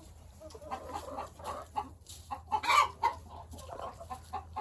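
Blue Laced Red Wyandotte roosters clucking in a pen, a string of short clucks with one louder, sharper call about two and a half seconds in.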